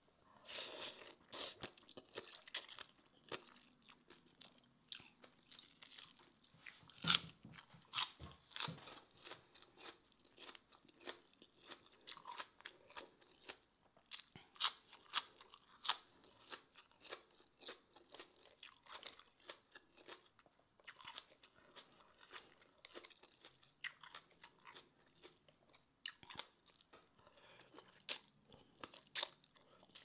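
A person chewing and biting a spicy Thai seafood papaya salad (tam thad thale) of squid, cockles, shrimp and rice noodles, close to the microphone: wet chewing with irregular crunches and sharp clicks, the sharpest about seven seconds in.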